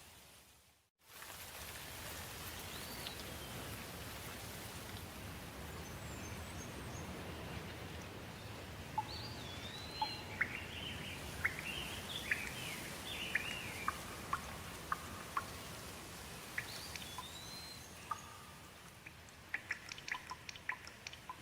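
Steady rain falling, with birds chirping over it through the middle. The sound drops out completely for a moment about a second in. Near the end the rain thins to separate drops ticking.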